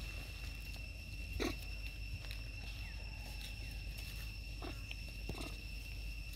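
Steady high-pitched insect drone, with a few brief sounds from young long-tailed macaques moving about on dry leaves and dirt, the loudest about a second and a half in.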